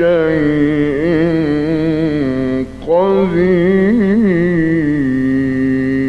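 A male Qur'an reciter's voice in melodic tajweed recitation, drawing out long ornamented notes with a wavering pitch: one held phrase, a quick breath about three seconds in, then a second long phrase.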